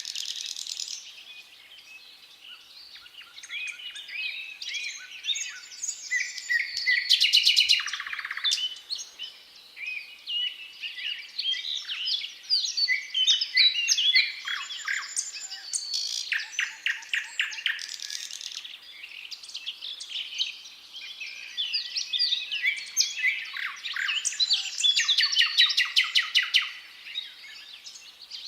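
Thrush nightingale singing. Its phrases are varied and separated by short pauses, and three loud, rapid clicking rattles come at about seven seconds in, around sixteen to eighteen seconds, and near the end.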